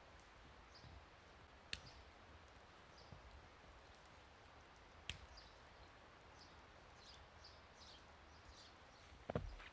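Near silence: quiet outdoor ambience with faint, short high chirps, two sharp clicks, and a couple of thuds near the end.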